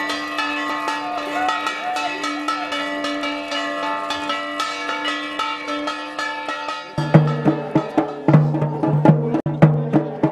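Bells ringing, with many overlapping sustained tones and repeated strikes. About seven seconds in this cuts off abruptly and gives way to drumming with a deep, steady beat.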